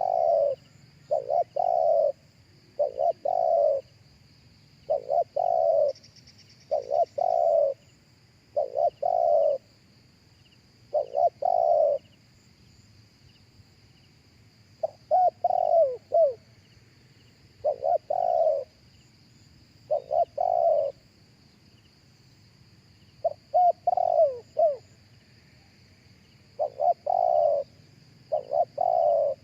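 Spotted dove cooing: a long series of short coo phrases, often in groups of two or three notes, with a pause of a few seconds about halfway through. A faint steady high-pitched insect drone runs underneath.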